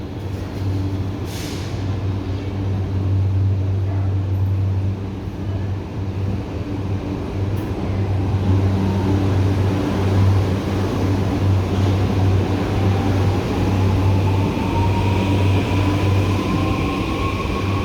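A train running at a station, with a steady low hum and a whine that rises steadily in pitch through the second half.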